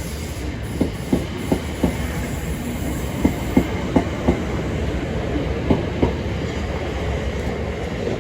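Southern Class 377 electric multiple unit pulling out, its wheels clicking over rail joints and points in quick groups of two to four over a steady low running rumble.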